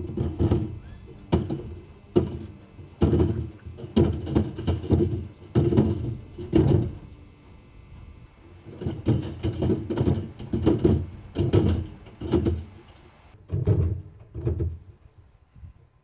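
Heavy, uneven thuds and knocks from a 10 kg steel block banging around inside a running top-loading washing machine's drum, roughly one a second in irregular clusters with a short lull in the middle.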